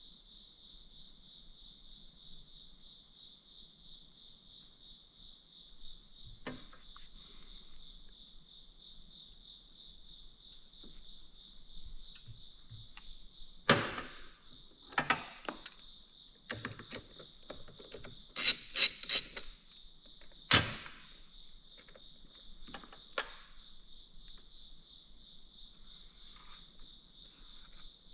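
Crickets chirping steadily throughout, with scattered sharp clicks and knocks of hand work on parts; the loudest knocks come in a cluster about halfway through.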